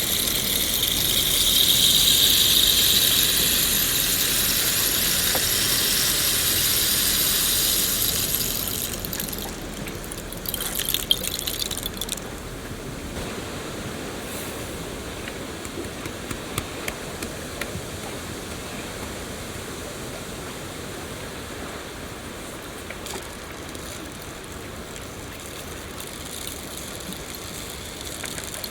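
Rain falling in a steady hiss, heavier and brighter for the first eight seconds or so, then easing to a lighter patter with scattered drips and taps.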